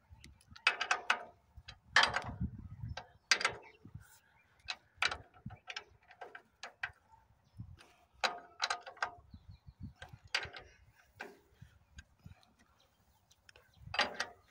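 Irregular metallic clicks and clinks of an L-shaped socket wrench being turned and reset on the oil pump's mounting bolts on a diesel engine crankcase, in short bursts of a few ticks each.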